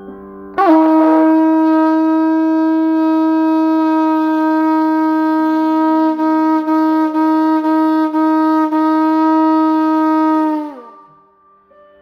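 Shofar blown in one long held blast of about ten seconds, sounded as a ritual seal on a blessing. It breaks quickly upward into the note, holds steady with slight wavers, then sags down in pitch as it ends.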